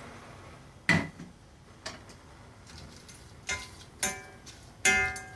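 A lighter clicks sharply once, about a second in, as the gas burner is lit. In the second half a wooden spatula stirs prawn heads in a stainless steel saucepan, and the pan gives three short metallic rings as it is knocked.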